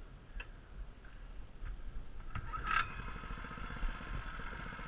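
Mini bike's small engine starting about halfway through, after a short scrape, then running at idle.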